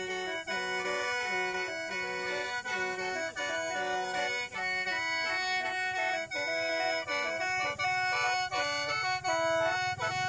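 Lao khaen, the bamboo free-reed mouth organ, played solo: a melody over held drone notes, several pitches sounding at once, with brief breaks between phrases.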